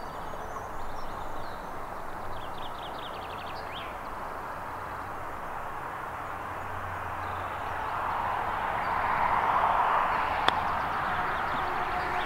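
A single sharp click about ten and a half seconds in: a golf iron striking the ball on a short chip shot. Under it runs a steady rushing outdoor noise that swells toward the click, with a few bird chirps in the first few seconds.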